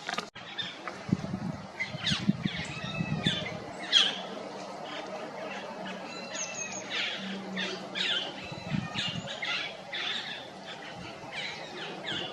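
Small forest birds chirping and twittering, many short high calls and quick falling notes overlapping. The uploader takes them for a flock of stripe-throated yuhinas calling to one another. A low rumble sits under the calls for a few seconds about a second in.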